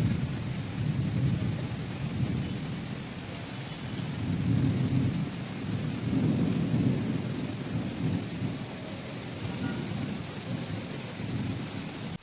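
Rain falling steadily, with a low rumble underneath that swells and fades several times.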